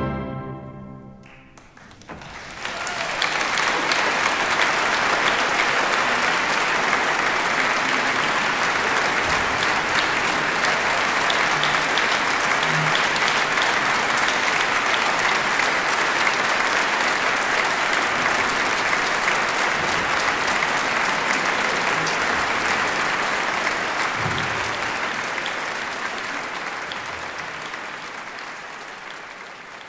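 The last orchestral chord dies away. About two seconds in, a concert audience breaks into loud, sustained applause, which fades out over the last few seconds.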